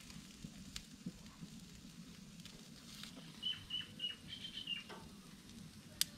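Faint sharp clicks of metal tongs on a grill grate, the loudest near the end. About halfway through, a bird chirps a quick run of about six short high notes.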